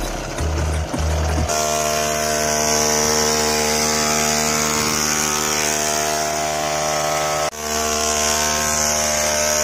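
Small engine of a homemade mini tractor running steadily at an even speed, with a brief dropout about seven and a half seconds in.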